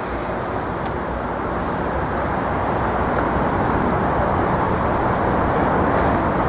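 Steady noise of distant road traffic, slowly growing a little louder.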